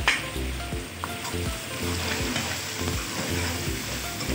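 Onions and ground spices sizzling in hot oil in an aluminium kadai, stirred and scraped with a steel ladle, with a sharp clink of the ladle on the pan at the start and another about a second in. This is the bhunai, the frying of the masala, on a medium-low flame.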